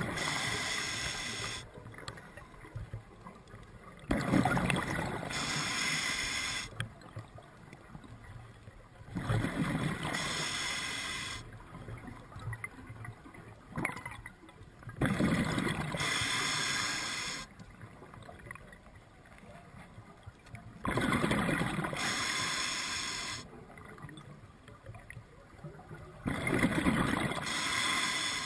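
Scuba diver breathing through a regulator: loud bubbling rushes of exhaled air about every five to six seconds, each lasting two to three seconds, with quieter stretches of inhalation between.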